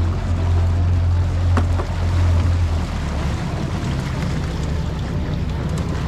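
Outboard motor of a small boat running under way, with water rushing in its wake. About halfway through, the deep steady drone drops away and a lighter engine note remains.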